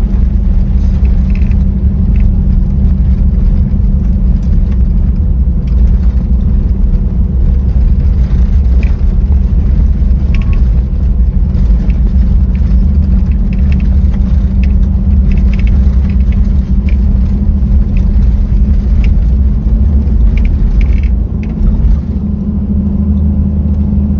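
Toyota Land Cruiser 70 (HZJ-71V) on the move, giving a loud, steady low rumble of engine and road noise with scattered light ticks. The rumble eases for a moment near the end.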